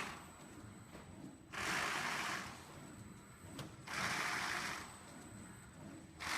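An automatic cutting machine running in cycles: a rushing, hissing stroke about a second long repeats roughly every two and a half seconds over a faint hum, with a single sharp click between strokes.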